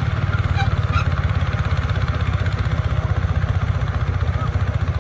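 A small engine running steadily, with a rapid, even pulse and a low, heavy tone.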